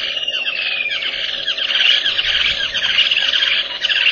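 A chorus of birds chattering at a waterhole: many quick falling chirps overlapping without a break, with one longer falling whistle in the first second. A faint steady hum runs underneath.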